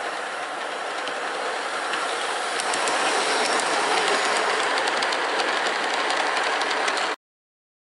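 Gauge 1 model freight train running past on garden track: a steady rolling rumble of wheels on rail with many small clicks over the rail joints. It grows louder about two and a half seconds in as the train draws near, then cuts off suddenly near the end.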